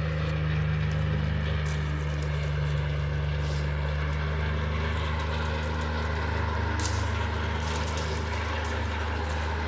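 A steady low mechanical hum, with a few faint rustles.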